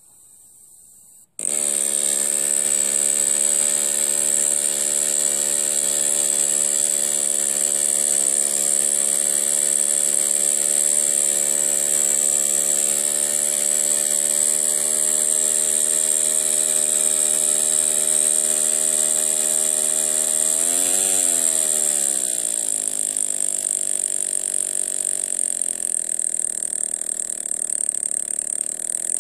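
Miniature single-cylinder, single-acting brass steam engine running fast on compressed air at 3 to 6 psi: a loud hiss of exhausting air over a high buzzing hum set by the engine's speed. It starts suddenly about a second in; about three-quarters of the way through the pitch rises briefly, then drops as the engine slows, and it picks up again near the end.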